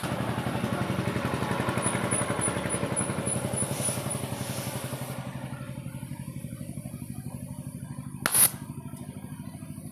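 A small engine running with a rapid, steady beat, slowly fading. About eight seconds in there is one short, loud sharp knock.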